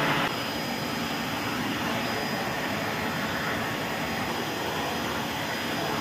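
AGARO Rapid 1000 W wet-and-dry canister vacuum cleaner running steadily: the motor's rush of air with a thin high whine. It drops slightly in level a moment in, then holds even.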